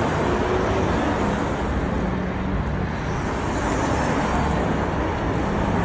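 Steady traffic noise of cars driving past on a city street, a continuous rush of engines and tyres.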